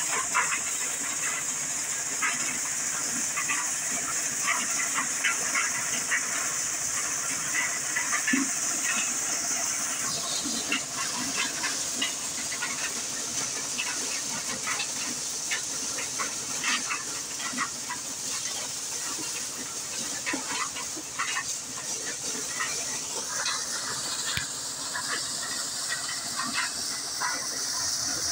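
Motor-driven maize thresher running under load: a steady high hiss with rapid, irregular clicks and rattles as cobs are threshed and kernels and husks are thrown out. The tone of the hiss shifts somewhat near the end.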